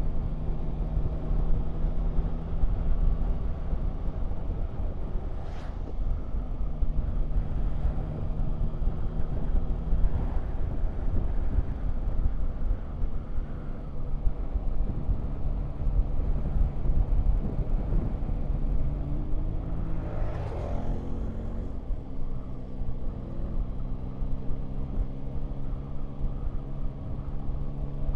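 Yamaha Tracer 9 GT's three-cylinder engine running while riding, with its note stepping up and down several times as throttle and gears change, under a low wind rumble. About twenty seconds in there is a brief louder swell that rises and falls in pitch.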